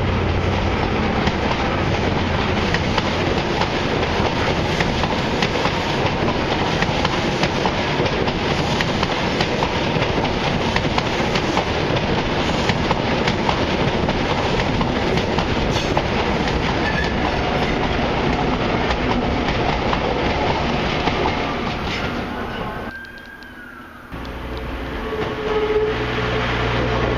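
East Coast InterCity 125 (HST) passing close by: the diesel power car running, then a long stretch of wheel and rail noise with clickety-clack from the coaches. Near the end, after a brief drop in level, a First TransPennine Express diesel multiple unit draws near with a steady engine hum.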